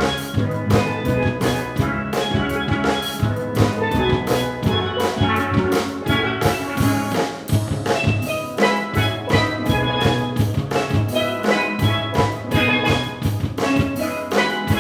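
Steel drum ensemble playing a pop song, many pans striking quick melodic and chord notes over a steady drum beat.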